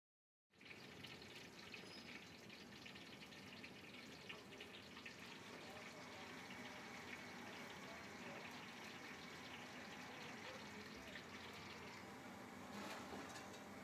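Hot oil sizzling and crackling faintly in a large aluminium cooking pot; it starts about half a second in.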